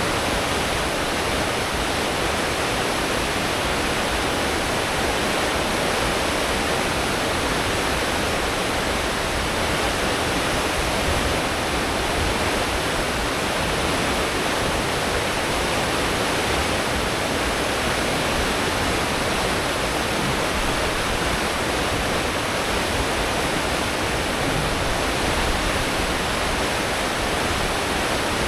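Churning propeller wake behind a cruise ship at full speed: a steady, even rush of water, with a low rumble from the ship's engines underneath.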